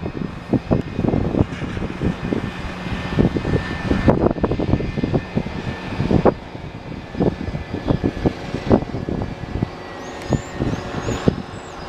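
Gusty wind buffeting the microphone, over the steady whine of an idling jet: a Delta MD-88 with its rear-mounted Pratt & Whitney JT8D engines, at the gate.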